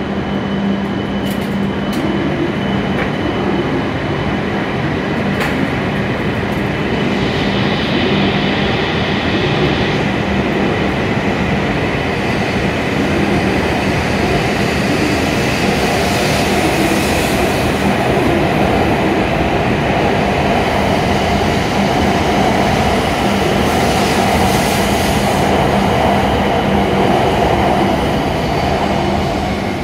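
E7-series Shinkansen train pulling out of the station and gathering speed, its cars running past close by with a continuous rolling rumble over a steady hum. The noise grows through the second half and eases off near the end as the last car clears.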